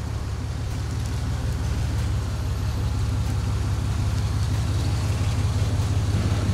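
Chevrolet Silverado pickup's engine running as the truck creeps forward at low speed: a steady, low exhaust note that grows louder as the truck draws near.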